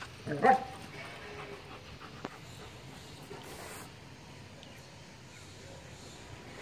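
German Shepherd dogs playing: one short, loud bark about half a second in, then quieter panting.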